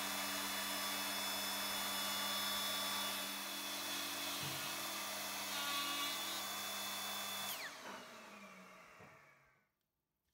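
Plunge router running at full speed with a steady high whine as it cuts walnut through an MDF template. About seven and a half seconds in it is switched off, and its pitch falls as the motor spins down over about two seconds.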